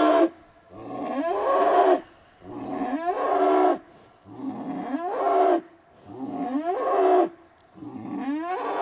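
Cattle bellowing over and over in a steady rhythm: about five long calls, each about a second and a half long, starting with a rising pitch, holding a coarse pitched tone and cutting off sharply before the next one.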